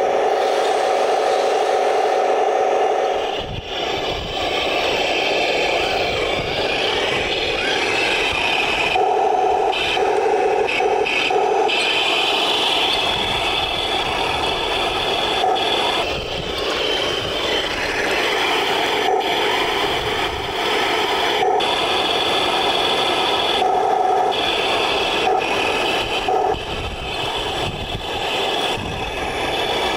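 1:16 scale Taigen RC tanks running, a steady mechanical whine with scraping and rattling as they drive and climb over dirt. From a few seconds in, gusts of wind rumble on the microphone.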